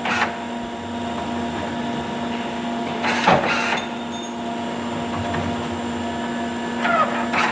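CNC wire-bending machine running with a steady mechanical hum, with one sharp clank about three seconds in.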